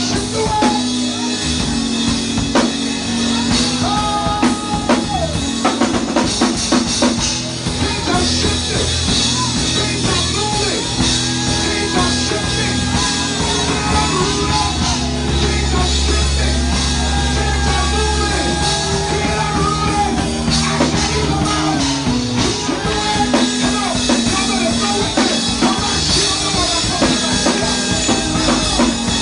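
Band music with a drum kit and singing, a church worship song.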